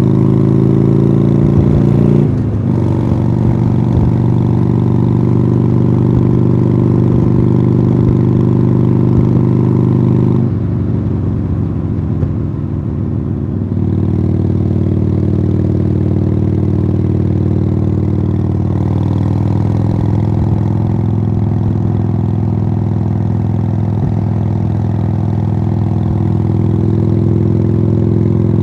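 A 2015 Harley-Davidson Sportster Iron 883's air-cooled V-twin running through Khrome Werks Tapered 3 exhausts under steady throttle, heard from the bike while riding. There is a brief break in the note about two seconds in. About ten seconds in the engine goes quieter and its pitch falls for a few seconds, then it settles back to a steady note.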